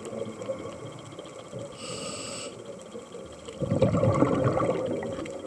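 Scuba diver breathing through a regulator, heard underwater: a short hiss of inhalation about two seconds in, then a longer, louder bubbling rush of exhaled air near the end.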